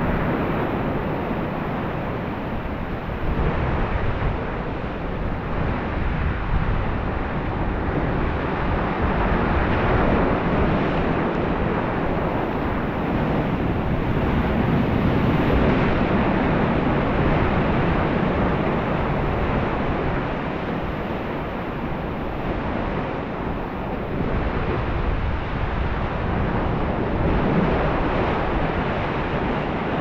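Ocean surf breaking against rocks in a narrow rocky cove: a continuous rush of water that swells louder and eases back as the waves come in and drain away.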